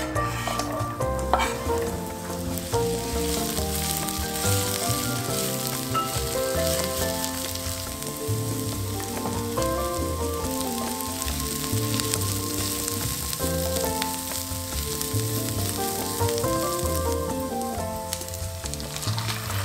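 Sliced onions slide into hot oil in a frying pan with a couple of soft hits at the start, then sizzle and fry steadily as they are stirred, with chopped garlic added partway through. Background music plays underneath.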